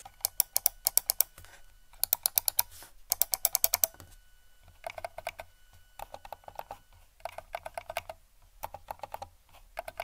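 Rapid runs of mouse-button clicks. First come the sharp, bright clicks of a Logitech MX Master 3's standard switches. From about four seconds in they give way to the much quieter, muffled clicks of the MX Master 3S's quiet-click switches.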